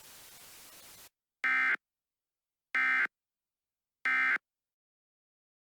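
Emergency Alert System end-of-message signal: three short, identical bursts of SAME digital data tones about a second apart, marking the end of the alert. A faint hiss before them cuts off about a second in.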